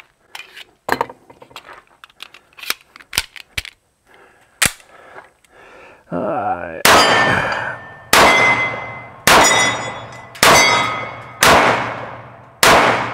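Six shots from a Springfield Armory Champion Operator .45 ACP pistol, fired at a steady pace about a second apart in the second half, each trailing off over about a second. Before them comes a scatter of sharp clicks.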